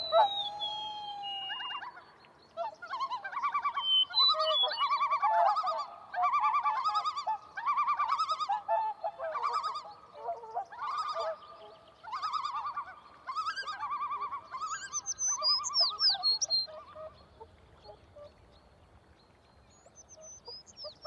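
Wild birds calling: a long run of repeated calls, about one a second, with a few higher rising notes among them, then only faint calls for the last few seconds.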